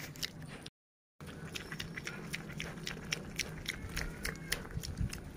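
An animal chewing and smacking on noodles: a run of quick, wet clicks and smacks, cut by a half-second dropout to silence a little under a second in.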